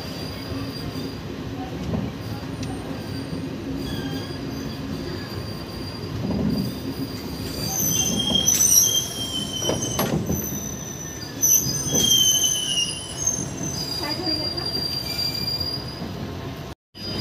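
Indian Railways passenger train running along a station platform: a steady rumble with the steel wheels squealing on the rails in high, wavering tones that come and go, louder and more frequent in the second half, with a few sharp knocks. The sound drops out briefly near the end.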